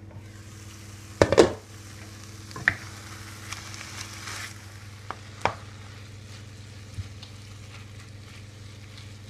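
Chicken breast mince and chopped red onion sizzling in a frying pan, with a clatter about a second in as the glass lid is lifted off. A wooden spatula then stirs the mince, knocking against the pan every second or two.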